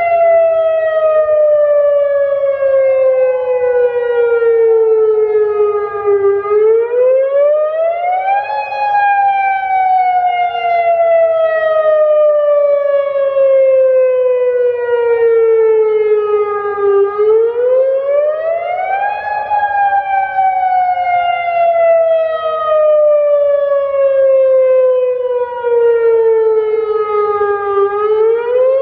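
Federal Signal Modulator 6048 electronic outdoor warning siren sounding a wailing tone. The pitch falls slowly for about five seconds, then sweeps quickly back up, and this repeats about every ten seconds, with a fainter second sweep trailing just behind.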